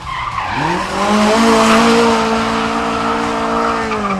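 Race car engine revving up sharply and held at high revs under hard acceleration, with tyre squeal and skidding, the revs falling away near the end.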